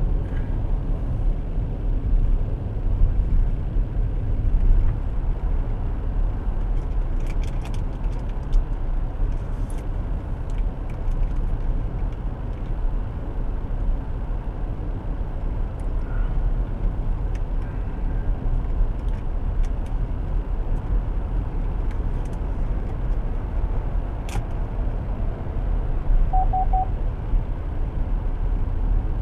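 Steady low rumble of a car heard from inside the cabin while driving, tyre and engine noise. A few light clicks in the middle and a sharper single click near the end.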